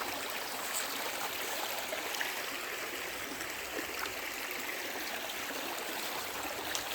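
Creek water running steadily over rocks, an even rushing and trickling with no break.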